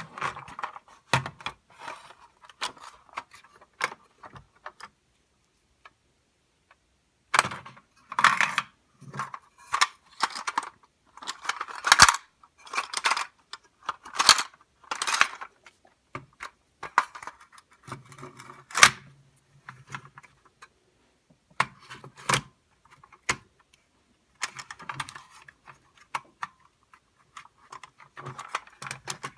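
Irregular metallic clicking and rattling from a vintage Bandai battery-operated toy Ford Thunderbird, in bursts with pauses, with a brief low hum a couple of times.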